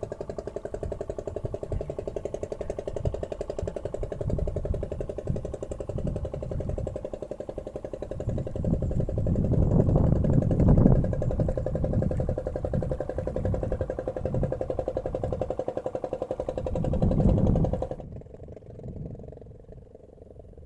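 A small engine running with a fast, even pulse, and a low rumble that swells about halfway through and again near the end. It cuts off suddenly shortly before the end.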